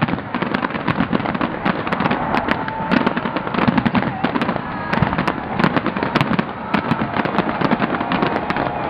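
Fireworks display going off: a dense, unbroken stream of loud bangs and crackling, with a few short whistles here and there.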